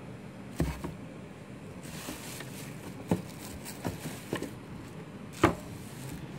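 Handling noise from a sneaker being moved about in a cardboard shoebox: several scattered knocks and bumps, the loudest near the end, with a stretch of rustling packing in the middle.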